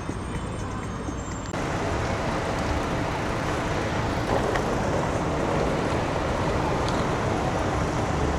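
City street ambience. It is quieter for the first second and a half, then cuts abruptly to a steady wash of road traffic noise.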